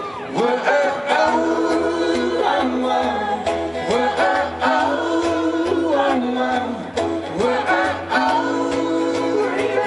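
Live acoustic folk band playing, with several voices singing a wordless melody together over the backing.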